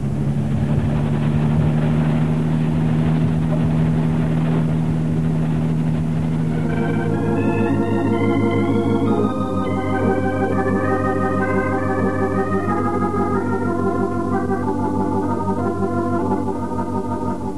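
Steady car-engine sound effect, cross-fading about seven seconds in into an organ playing a slow run of held chords: the musical bridge that marks a scene change in an old-time radio drama.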